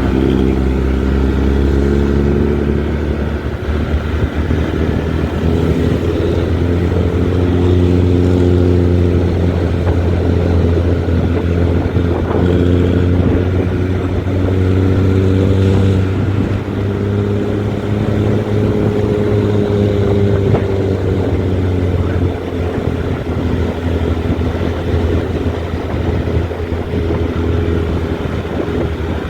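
Diesel engine of a Nissan-chassis intercity bus running under way, its exhaust giving a deep snoring growl (ngorok). The engine note rises and falls gently several times as the bus changes speed.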